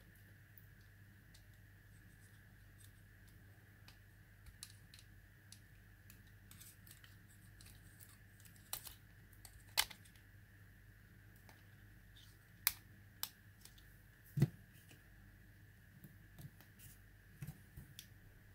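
Light plastic clicks and taps from the body of a small folding toy drone being handled and its snap-fit cover unclipped, with a few louder sharp snaps near the middle, about ten, thirteen and fourteen and a half seconds in.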